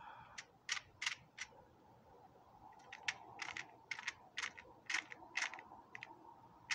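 Light, irregular clicks and clinks of .22 LR cartridges being picked out of their small ammunition box and handled, a few at first and a quick cluster in the second half.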